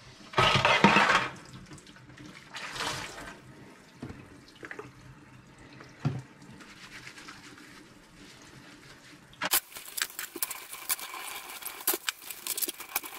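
Water from a kitchen mixer tap running into a sink and splashing over carbon-fibre parts as they are rinsed and wiped with a cloth. A loud rush of water comes about half a second in, then quieter running, with many quick splashes from about nine seconds on.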